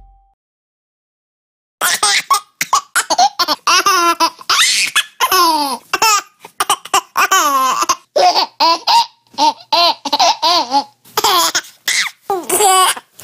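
Laughing-baby ringtone: a baby laughing in quick, repeated bursts of giggles and belly laughs, starting about two seconds in.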